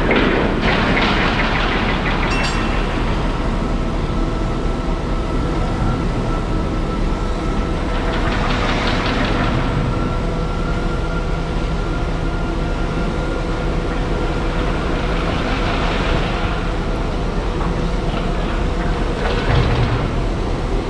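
Steady machinery rumble with a constant hum, and four or five brief swells of hissing noise.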